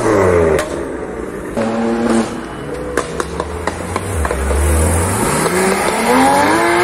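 Sports car engines accelerating hard. The BMW M4's revs fall away at the start, a deep exhaust rumble comes in around the middle, and a Porsche's engine revs rise steadily near the end as it pulls away.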